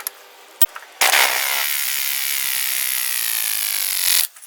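Power tool spinning a socket on an exhaust pipe expander to spread the end of an exhaust pipe, running for about three seconds from a second in, its motor pitch sliding steadily down under load before it stops abruptly. A single click comes just before it starts.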